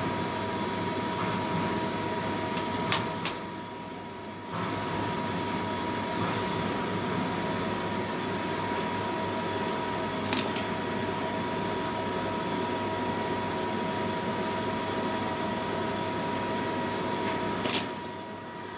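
Steady mechanical hum of a running kitchen appliance with a thin constant whine. It dips briefly about four seconds in, with a few light clicks scattered through it.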